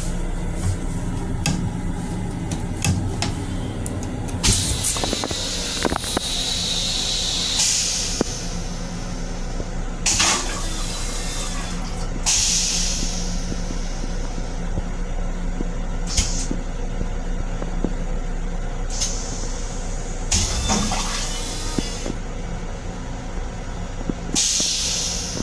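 Toilet in a Long Island Rail Road M7 railcar restroom flushing: a series of hissing rushes of water and air. The longest starts about four seconds in and the others follow every few seconds, over a steady low hum from the railcar.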